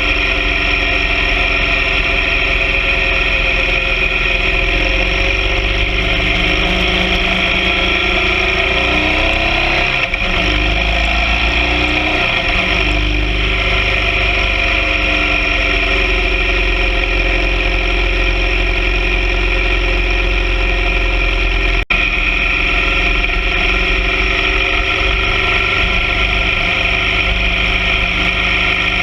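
BMW R 1200 GS Adventure sidecar rig's boxer-twin engine running steadily under way, with steady wind noise. Its pitch wavers up and down about a third of the way in, and the sound cuts out for an instant about three-quarters through.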